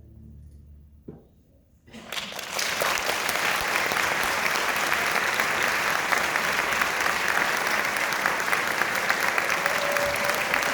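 The orchestra's final held chord dies away in the first second. After a short pause, an audience breaks into applause about two seconds in, swells quickly and keeps clapping steadily.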